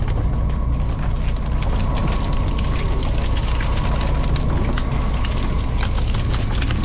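Fishing boat engine running with a steady low hum. Over it come many quick clicks and slaps from fish being handled and dropped into plastic baskets on the deck.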